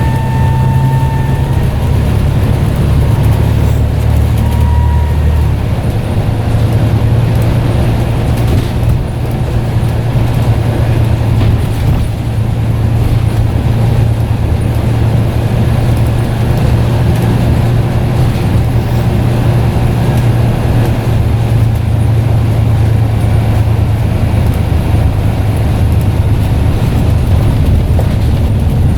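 Scania N94UD double-decker bus engine running under way, a steady low drone. A high turbo whistle sounds over it at the start, dies away after a second or so, and comes back briefly around five seconds in.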